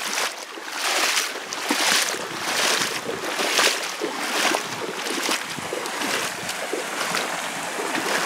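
Water sloshing and splashing, swelling in surges about once a second, with wind on the microphone.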